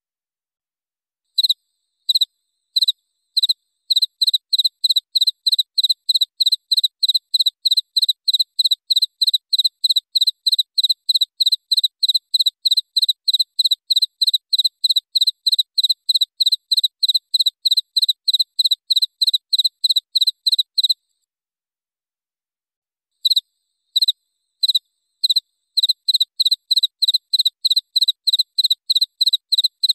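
Cricket chirping: clear, clean chirps that begin with a few spaced ones, settle into an even rhythm of about four chirps a second, stop for about two seconds, then start again.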